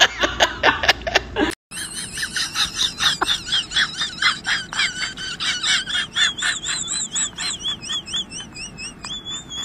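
A rooster pecks quickly at food in a hand-held bowl, a steady run of sharp taps about four a second. A high, warbling whistle-like tone runs over the taps in the second half. At the start, a man laughs briefly before a cut.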